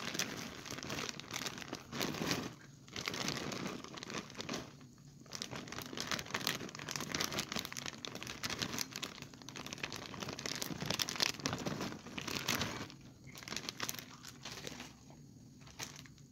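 A plastic bag of shredded coleslaw mix crinkles irregularly as it is shaken and emptied into a bowl, with the cabbage shreds spilling out. It grows quieter about thirteen seconds in.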